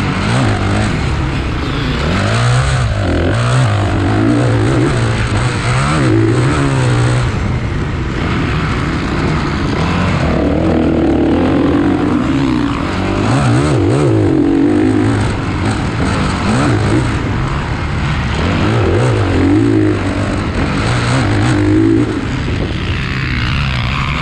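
Several motocross dirt bikes racing, their engines revving up and falling back over and over, overlapping one another.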